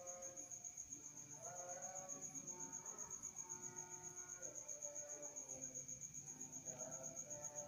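Soft instrumental background music with slow held notes, over a steady, rapid, high-pitched pulsing chirp.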